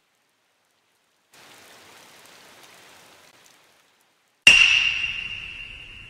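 Faint soft rain-like hiss for about two seconds, then, after a short silence, a sudden loud strike of a metal chime that rings out with one high tone, fading over about two seconds.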